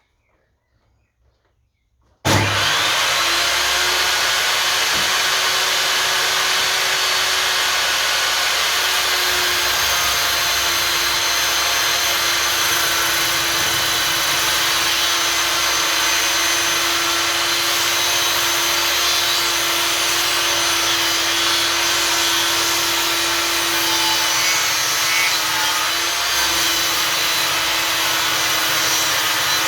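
Einhell table saw switched on about two seconds in, coming straight up to speed and then running loud and steady with a constant whine.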